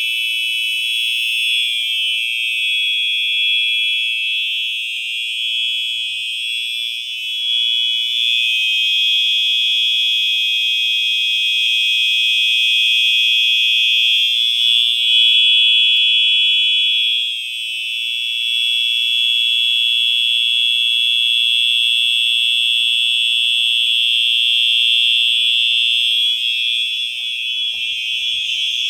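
Two Simplex 4903-9236 fire alarms sounding together without a break, one lower in pitch than the other, which gives an eerie, clashing tone.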